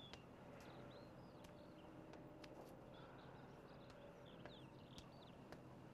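Near silence: faint outdoor ambience with small birds chirping now and then.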